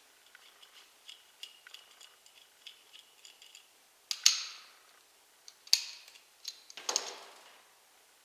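Metal flaring tool being handled: light, irregular clicking and ticking, then three sharp metallic clanks with a short ring, about four, five and a half and seven seconds in.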